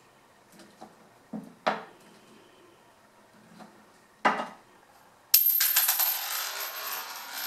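Coins knocked against a wooden tabletop by a masked lovebird's beak, a few sharp clicks. About five seconds in, a coin drops off the table and clatters, then keeps rattling and ringing on the hard floor.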